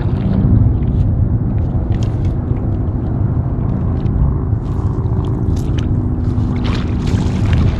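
A motor running with a steady low rumble and hum, with a few small clicks and a brief hiss near the end.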